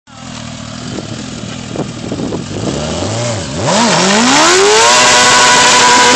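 Suzuki GSX-R sport bike's inline-four engine idling with a few short blips of the throttle, then revved up about three and a half seconds in and held at high revs as the rear tyre spins on the asphalt in a smoky burnout, with a hiss of tyre noise over the engine.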